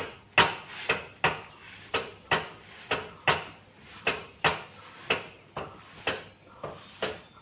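A steady series of sharp knocks, about two a second, each ringing briefly, like utensils or a tool striking a hard surface.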